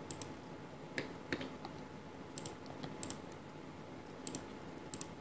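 Faint, scattered clicks of a computer mouse and keyboard, some in quick pairs, over quiet room tone.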